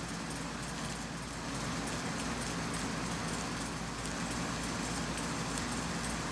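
Plastic trash bag crinkling and rustling as a seat cover is worked down over a bag-wrapped foam seat back, with a steady low hum underneath.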